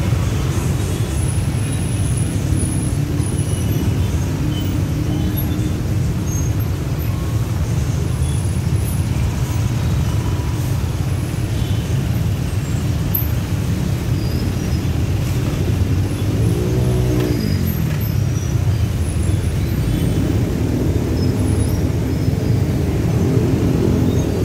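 Stop-and-go traffic jam of motorcycles and cars close around: a steady low rumble of idling and creeping engines. About two-thirds of the way through, one engine briefly rises and falls in pitch.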